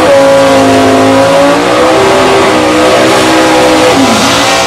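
Big-block V8 drag cars held at high revs in a burnout, rear tyres spinning in smoke. The engine note holds high and steady, then drops sharply about four seconds in and starts climbing again near the end.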